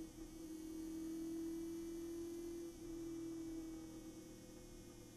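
Chevrolet Nova race car's V8 engine heard from inside the cockpit, running at speed as one steady droning note. It grows quieter about three and a half seconds in.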